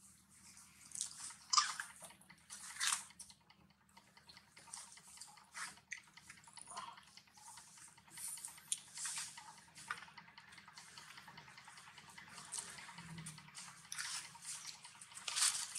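Long-tailed macaques chewing food, irregular wet clicks and smacks of their mouths a few at a time.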